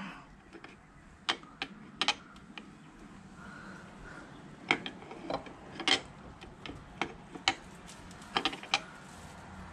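Light metal clicks and taps, a dozen or more at irregular intervals, as an L-shaped key and the stator's mounting screws knock against the stator and engine case of a Yamaha WR400F while the screws are located and started by hand.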